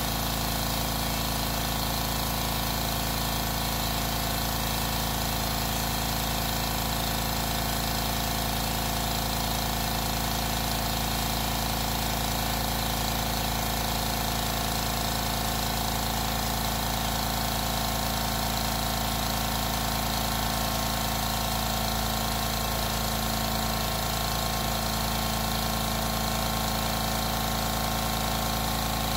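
California Air Tools 8-gallon quiet air compressor running steadily as it fills its tank, the motor and pump holding an even hum while pressure builds toward cut-off.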